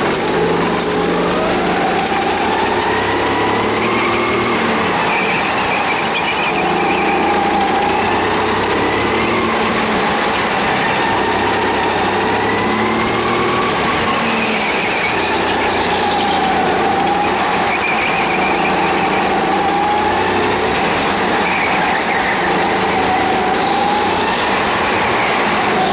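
Go-kart engine heard from the driver's seat, its pitch repeatedly rising and falling as the kart speeds up out of corners and slows into them.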